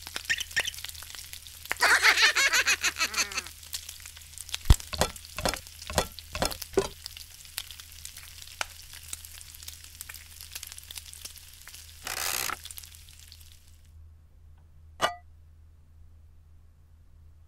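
Frying pan sizzling, with a steady hiss full of sharp crackles and spits. A high, warbling squeal comes about two seconds in. The sizzle cuts off suddenly about fourteen seconds in, and a single sharp click follows a second later.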